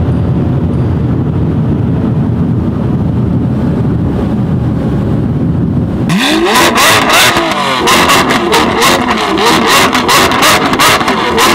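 A Lamborghini Gallardo's V10 heard from inside the cabin, a steady low drone while the car drives along. About six seconds in, it switches to a Lamborghini Aventador SV Roadster's V12, revved hard again and again, rising and falling, with a rapid stream of exhaust crackles and pops.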